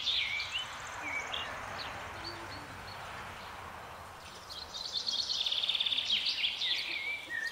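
Songbirds singing: rapid trills and short chirps near the start and again more strongly in the second half, over a soft steady hiss.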